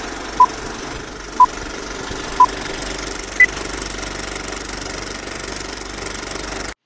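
Four short electronic beeps a second apart, three at one pitch and the fourth higher, in the pattern of a countdown start signal, over a steady mechanical rumble that cuts off suddenly near the end.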